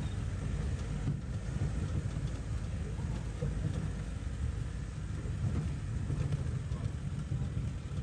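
Jeep driving over a muddy, rutted dirt track, heard from inside the cabin: a steady low rumble of engine and tyres.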